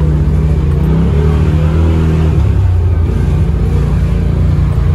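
Polaris RZR Pro XP Turbo's turbocharged twin-cylinder engine running hard off-road. Its pitch rises and falls with the throttle for the first two seconds or so, then it runs rougher and more uneven.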